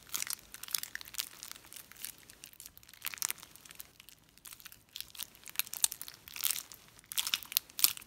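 Black butter slime being kneaded and stretched by hand with lotion worked into it, giving sticky wet clicks and crackles in clusters with short pauses between.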